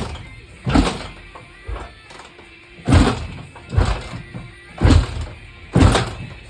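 Background music with a heavy, punchy drum beat, hitting about once a second.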